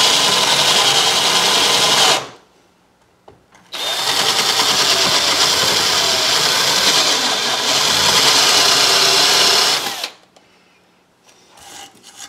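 Electric drill boring into the wooden hull to clear out wood. It runs for about two seconds, stops briefly, then runs again for about six seconds before cutting off, with a few faint handling clicks near the end.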